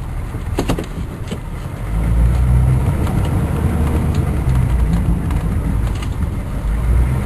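Snowplow vehicle's engine running, its low drone growing louder and heavier about two seconds in as it works under load pushing snow. A couple of light clicks in the first second and a half.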